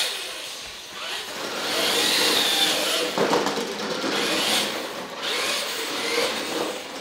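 Radio-controlled cars' electric motors whining, rising and falling in pitch as they speed up and slow down on a concrete floor, with a knock about three seconds in.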